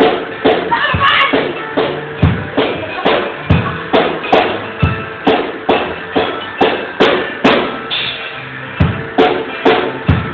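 Music with a drum kit keeping a steady beat of about two strikes a second, bass drum and snare, over low sustained tones; the beat briefly drops away about three quarters of the way through.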